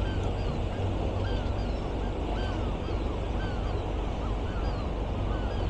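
Gulls calling over and over, short rising-and-falling cries several times a second, over the steady low rumble of demolition machinery: a rock crusher and excavators working.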